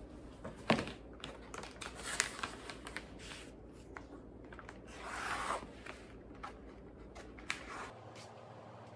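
Small handling noises in a quiet room: scattered light clicks and taps, with a longer rustle about five seconds in.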